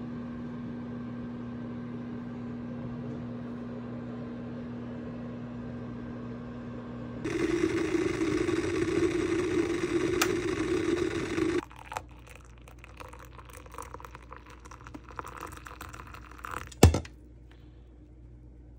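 Chefman glass electric kettle loud at a rolling boil for about four seconds, its rumble ending abruptly. Before it a steady low hum; after it, quieter clinks and rustling with one sharp knock near the end.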